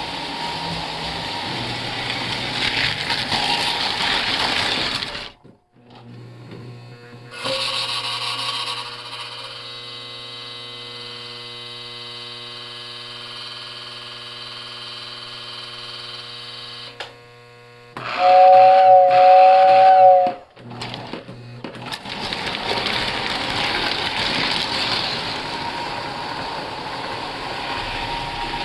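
Model trains running. There is a steady rolling and motor noise, then a steady many-toned hum for about ten seconds. About eighteen seconds in, a loud two-note horn sounds for about two seconds, and then the running noise returns.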